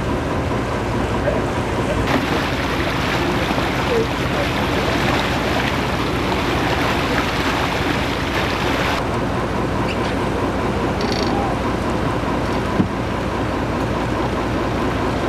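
Steady rush of water along the hull and rudder of a sailing barge under way, mixed with wind on the microphone; the water hiss is brighter and fuller for several seconds in the middle. A single short click sounds near the end.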